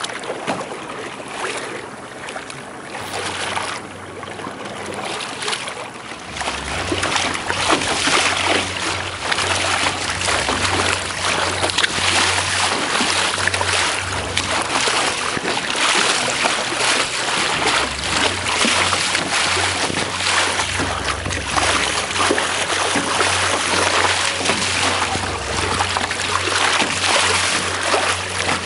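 Water rushing and splashing along a sailboat's hull under way, with wind buffeting the microphone as a low rumble that grows louder about six seconds in.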